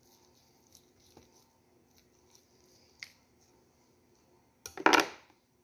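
Knife slicing down a stack of roasted shawarma chicken: faint soft cuts and scrapes, then a loud, brief rustling scrape just before the sound cuts off suddenly.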